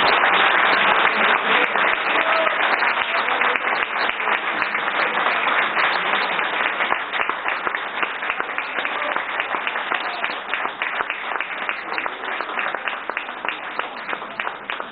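Audience applause: dense, many-handed clapping that starts loud and slowly thins and fades.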